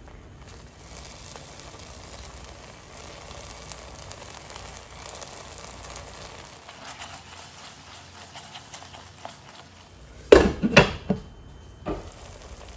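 Thick masala paste sizzling in a nonstick frying pan while a spatula stirs it. A few loud clattering knocks about ten seconds in, and another shortly after, as a glass lid goes onto the pan.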